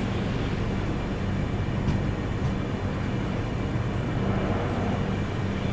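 Kanyakumari–Chennai Express passenger train running just after leaving a station: a steady rumble with a low, even hum.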